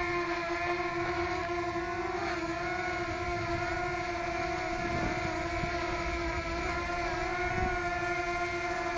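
DJI Mavic Mini's propellers whining steadily in a hover, the pitch dipping briefly about two seconds in as the motors correct, with wind buffeting the microphone.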